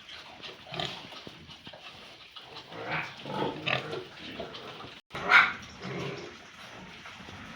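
Pigs grunting in short bursts, with one louder call about five seconds in.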